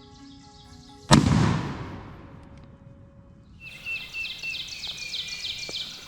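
A single loud bang about a second in, fading slowly. From a little past halfway, a quick, regular run of short high notes, each falling in pitch, repeats over a steady high tone.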